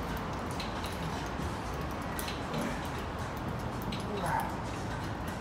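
Steady gym room noise with scattered faint clicks, and a short brighter sound about four seconds in.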